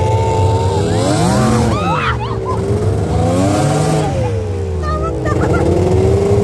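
Snowmobile engine running under way, its pitch rising and falling twice as the throttle is opened and eased, over a steady low rumble.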